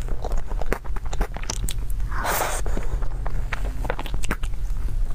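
Close-up eating sounds: wet mouth clicks and smacks while chewing a soft whipped-cream cake, with a metal spoon scraping in the plastic cup. A short rushing noise comes about two seconds in, over a steady low hum.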